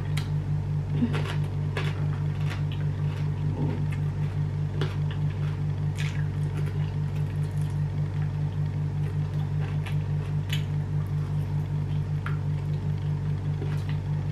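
Wet chewing and mouth clicks of someone eating food by hand, over a steady low hum that pulses several times a second.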